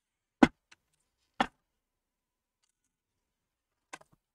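Sharp clicks of small metal parts and tools being handled inside an opened all-in-one PC: two clicks about a second apart, then a fainter double click near the end as the metal RAM shield comes free.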